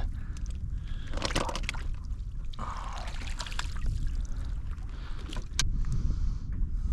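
Wind rumbling on the microphone, with water sloshing and gurgling against a kayak and scattered small knocks and clicks from handling.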